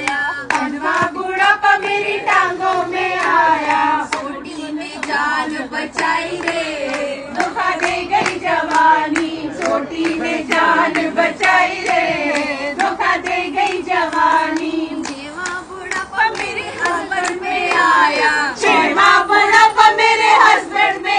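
A group of women singing together in chorus over steady rhythmic hand-clapping, getting louder near the end.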